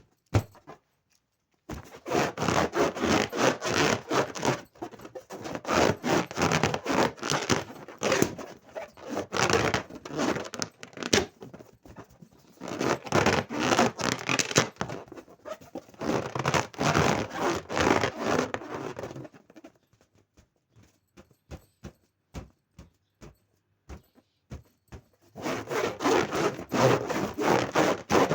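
Balloons rubbing and scraping as they are handled: rapid rasping in stretches of a few seconds, broken by pauses with scattered clicks.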